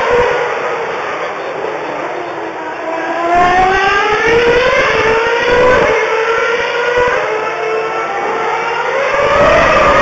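2009 Formula One cars' 2.4-litre V8 engines at high revs, the note climbing in pitch in several long sweeps as they accelerate through the gears. The sound dips in the first few seconds and swells again near the end as another car approaches.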